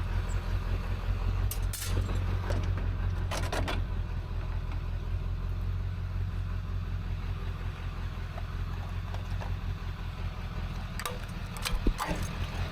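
A motor vehicle engine idling steadily, with a few short metallic clinks of scrap being handled, a couple early on and a cluster near the end.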